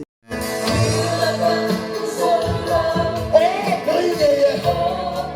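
Background music with singing voices, cutting in after a split-second gap at the start.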